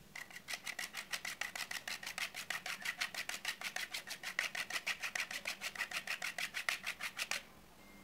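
A bar of dark chocolate being grated on a hand grater: a fast, even run of rasping strokes, about six a second, that stops suddenly about seven seconds in.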